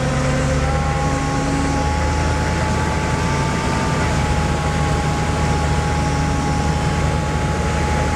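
Military Humvee's V8 diesel engine running steadily while driving, heard from inside the vehicle, with a steady high whine over the low engine note.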